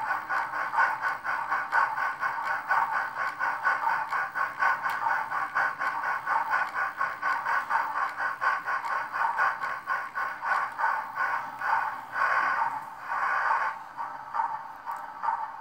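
Sound decoder of a Rivarossi H0 Chapelon 4-6-2 model steam locomotive playing rapid, even steam-exhaust chuffs through its small onboard speaker as it runs on a rolling-road test stand. Near the end two longer hissing bursts break in over the chuffing.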